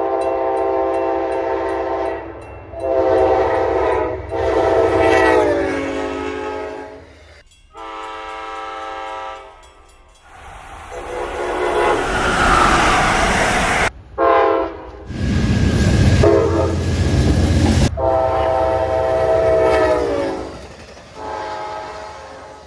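Passing trains' locomotive air horns sounding a series of long blasts in a chord of several tones, some sliding down in pitch at their ends as the train goes by. In the middle a train rushes past with a loud rumble, and the sound cuts abruptly from one train to another twice.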